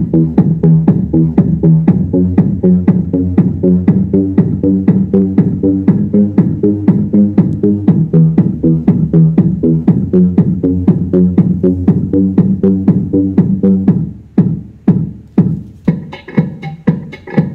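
Electronic dance music with a fast, steady drum-machine beat and a heavy bass line, played loud through a homemade MDF-box Bluetooth subwoofer speaker. Near the end the bass line drops out, leaving the beat, and then brighter, higher parts come in.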